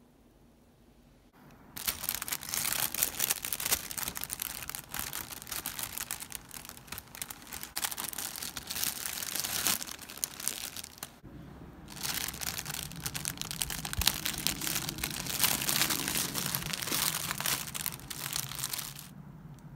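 Clear cellophane treat bag crinkling as it is handled and filled with cookies. It starts about a second and a half in, breaks off briefly around the middle, then crinkles again and fades out near the end.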